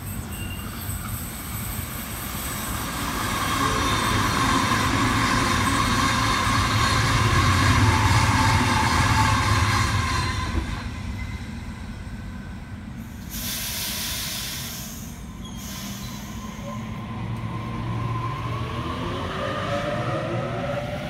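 Double-deck electric passenger train passing, its wheels and running gear building to a loud rumble with some wheel squeal, then dying away about ten seconds in. A burst of hiss follows a few seconds later, and near the end an electric train pulls away, its traction motors whining upward in pitch as it accelerates.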